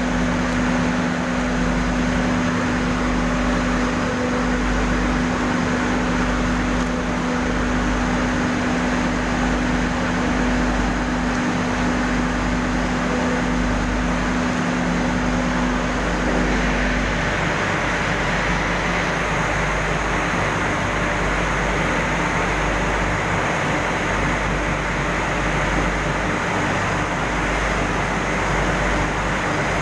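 Industrial furnace plant running with a steady, loud roar. A low two-tone hum runs alongside it and stops a little over halfway through, while the roar carries on.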